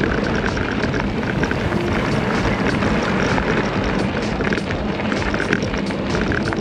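Loud, steady rushing and buffeting of wind on the camera microphone.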